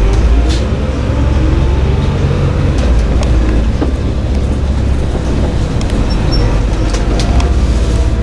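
City bus engine and drivetrain rumbling from inside the cabin as the bus pulls away from a traffic light and turns, with a few sharp rattles from the bus body.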